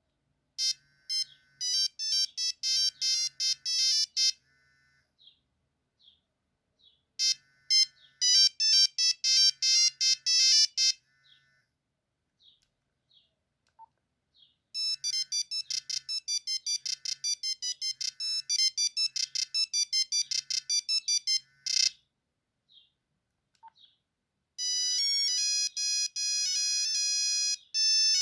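Nokia 3310 ringtones played one after another: short electronic melodies of quick beeping notes, four of them in turn, separated by gaps of near silence with faint short blips.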